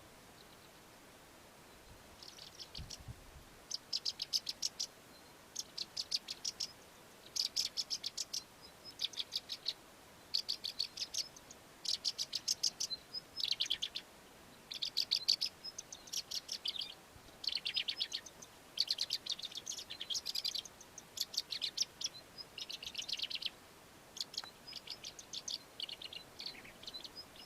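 Melodious lark singing: a long string of short, about one-second phrases of rapid high chirping notes with brief pauses between them, starting about two seconds in. The song is laced with mimicry of other local birds.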